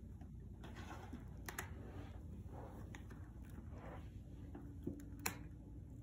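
Light clicks and soft papery rustles of fingers picking at and opening the little cardboard pieces of a pop-up Christmas-tree calendar, with a sharper click about five seconds in.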